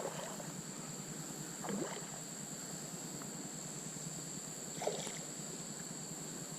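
Quiet water sounds around a kayak, with three short, soft splashes or knocks against the hull, under a steady high-pitched insect drone.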